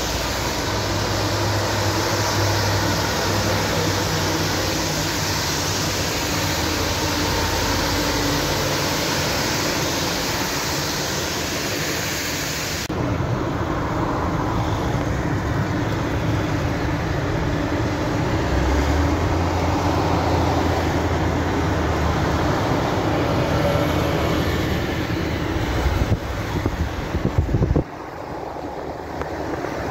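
Heavy-haul truck convoy on a wet road: a steady low diesel engine hum with tyre noise from the wet road surface. About halfway through the sound changes suddenly to duller road and engine noise heard from inside a car driving alongside the low-loader trailer.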